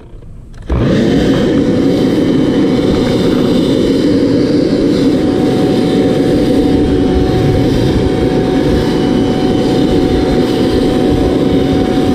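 A powered blower running steadily, blasting dirt and grass trash off a Briggs & Stratton mower engine; it starts just under a second in with a steady whine over a hiss of rushing air.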